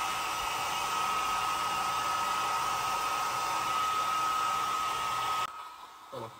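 Hand-held hair dryer blowing steadily, a hiss of air with a single high motor whine, cutting off abruptly about five and a half seconds in.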